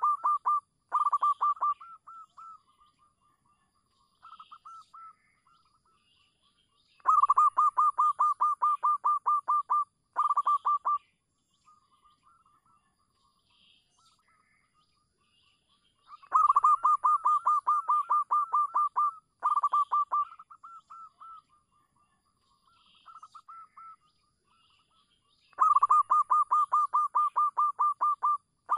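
Zebra dove (perkutut) song: fast trains of staccato cooing notes, about five a second, in loud phrases of about three seconds that come roughly every nine seconds. Each phrase is followed by shorter, softer bits of cooing.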